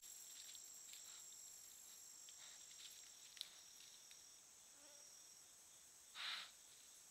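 Night insect chorus: a steady, high trilling that pulses on and off, with faint rustles and ticks and one short, louder noisy burst about six seconds in.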